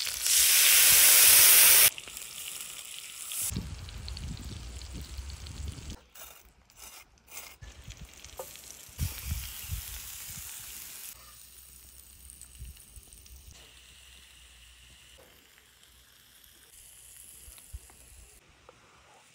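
Beef patties sizzling and spitting in a tray of bubbling hot fat on a grill. Loud for about the first two seconds, then much quieter, with a soft hiss and occasional light knocks of handling.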